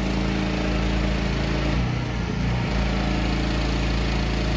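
Small gas engine of a wheeled pressure washer running steadily, its pitch dipping briefly about two seconds in.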